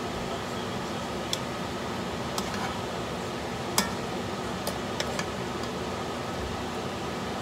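Metal spoon clinking against a stone-coated wok as shrimp and tomatoes are stirred: about seven sharp clinks, the loudest near the middle, over a steady hiss.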